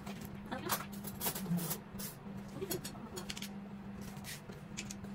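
Light knocks, taps and scrapes of wooden bed-base slats being handled and fitted together on a wooden floor, scattered irregularly over a steady low hum.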